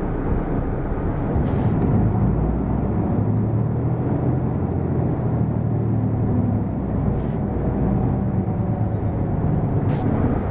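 Hino PDG-KV234N2 city bus under way, heard from inside the cabin: a steady low diesel engine drone over road noise. The engine note strengthens from about three seconds in and eases off near seven seconds, with a few faint clicks and rattles.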